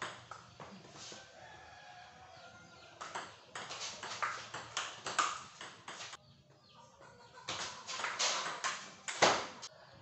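Table tennis rally sounds: a ping-pong ball clicking back and forth between bats and table in two runs of quick hits, one about three seconds in and one about seven and a half seconds in, with a sharper, louder hit just before the end.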